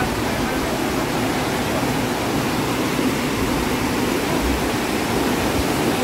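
Large waterfall with a heavy flow, its falling water making a steady, loud rushing roar.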